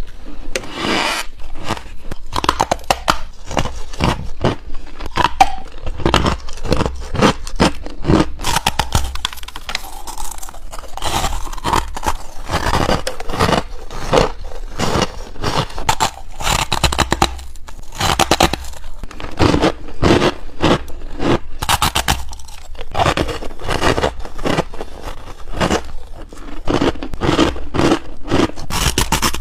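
Close-miked biting and chewing of freezer frost: a rapid run of crisp crunches and scraping crackles as mouthfuls of packed frost are bitten and crushed between the teeth.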